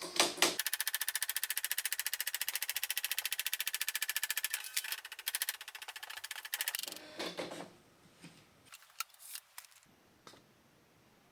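Facit T165 typewriter printing a fast, very even run of keystrikes, roughly ten a second, for about six seconds, as it types text sent from a computer. A few scattered clicks follow before it stops.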